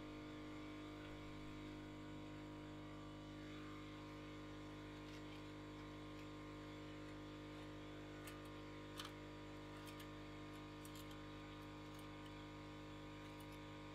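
Faint steady hum made of several even tones, with a few light clicks and taps in the second half, the sharpest about nine seconds in.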